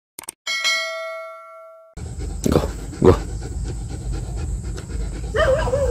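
A subscribe-button sound effect: two quick mouse clicks, then a bright notification-bell ding that rings and fades. About two seconds in, outdoor sound with wind rumbling on the microphone takes over, with two sharp clicks and, near the end, a short wavering whine from the German Shepherd.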